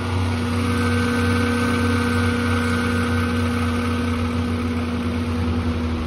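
Liebert condenser fan, driven by a variable-speed single-phase motor, running loud and steady: a low hum with several steady whining tones above it from the motor's bad bearings.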